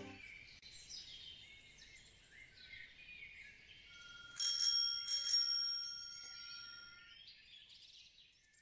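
Birds chirping faintly, then a bicycle bell rung twice, about four and five seconds in, its ring dying away over a couple of seconds.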